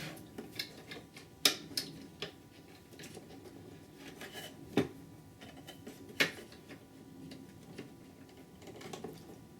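Scattered small clicks, taps and rubbing of hands working a graphics card's plastic power-cable connector into place inside a computer case, with a few sharper clicks spread through.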